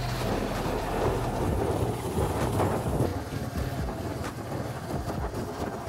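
Motorcycle engine running while riding, a steady low rumble with wind buffeting the microphone.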